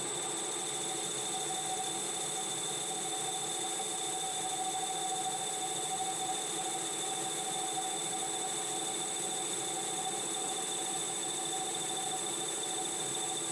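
Metal lathe running steadily while a turning tool cuts down a metal bar: a constant machine whine with a few fixed high tones over a cutting hiss.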